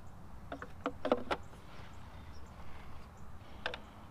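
Hard plastic clicks and knocks from a smoked aftermarket tail light assembly being handled and fitted into place: a quick run of about five clicks about a second in, and one more near the end.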